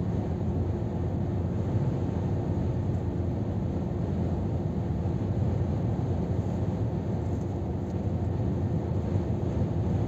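Steady cab noise of a Scania R500 truck cruising at motorway speed: a constant low engine drone mixed with tyre and road rumble.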